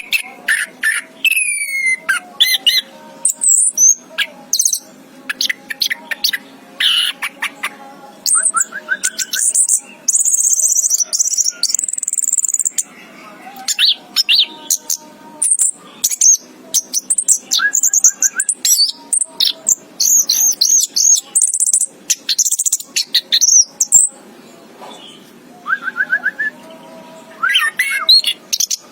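Orange-headed thrush (anis kembang) singing a long, varied song of sharp high chirps, slurred whistles and quick trills, in phrases broken by short pauses.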